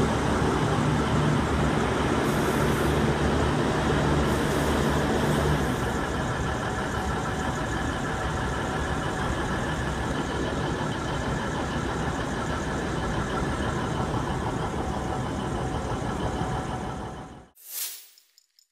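V/Line VLocity diesel railcar set departing below, its diesel engines running with a low steady drone that eases a little after about five seconds as the train draws away. The sound cuts off abruptly near the end, followed by one brief whoosh.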